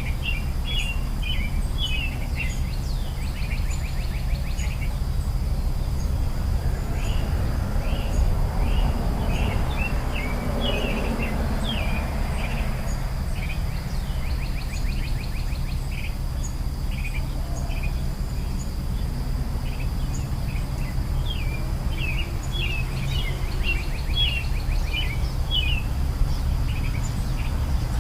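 Nature ambience: small birds chirping in quick repeated calls, over a steady high insect drone and a steady low rumble. The rumble swells briefly about ten seconds in.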